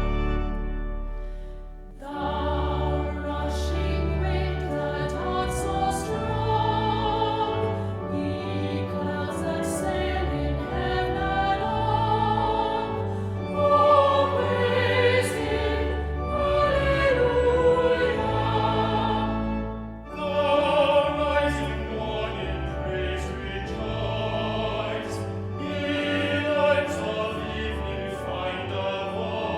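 Classical choral music: voices singing with vibrato over orchestral accompaniment, with short breaks between phrases about two seconds in and about twenty seconds in.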